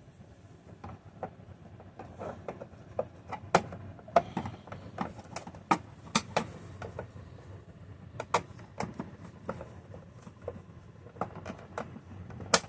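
Irregular clicks and knocks as the 2004 Panasonic upright vacuum's headlight parts are handled and fitted, a few sharper snaps among them.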